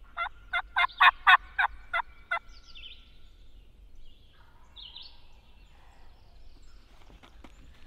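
Turkey mouth call blown aggressively, cutting like an excited hen: a run of about nine sharp, loud notes over roughly two seconds, sent out to strike a gobbler.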